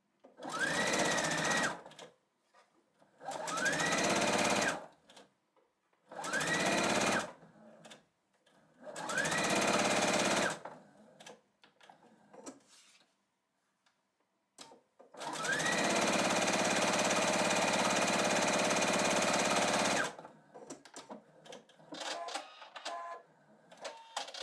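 Husqvarna Viking sewing machine stitching in short runs: four bursts of a second or so, each with a whine rising as the motor speeds up and then holding steady, followed by a longer steady run of about five seconds. Small handling clicks follow near the end.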